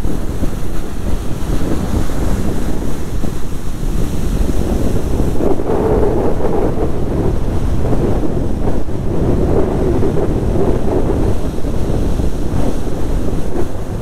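Rough storm surf breaking and washing up the beach, driven by gale-force wind, rising and falling in loudness as the waves come in. Strong wind buffets the microphone throughout in a constant low rumble.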